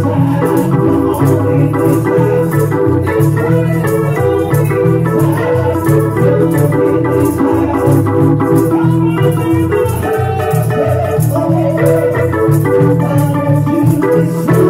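Gospel church organ playing an instrumental passage of sustained chords over a moving bass line, with light percussion ticking steadily in the treble.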